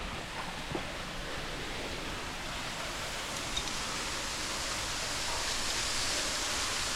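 Steady rushing of a waterfall falling into a cave pit, growing slowly louder.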